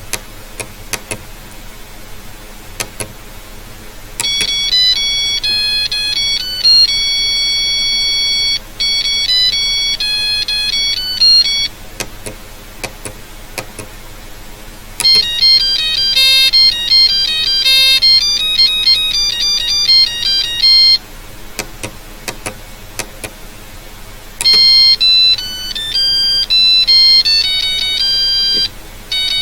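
Monophonic beeping ringtone melodies generated by an STM32F411 microcontroller from RTTTL ringtone data, played note by note in quick high-pitched steps. Three tunes play: one starts about four seconds in, one around fifteen seconds, and one near twenty-five seconds. Between them are short gaps of hiss with faint clicks.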